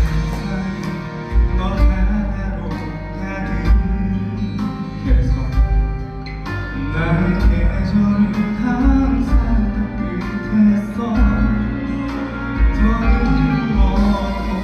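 A song playing with a steady beat and a bass line, with some singing.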